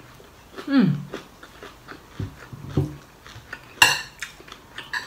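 Close mouth sounds of a person eating a fresh ลูกโดด chili whole: a short falling hum about a second in, then chewing with small crunching clicks, and one sharp click a little before the four-second mark.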